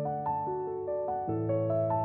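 Background music: a gentle piano melody, one note after another about every half second over sustained low chords.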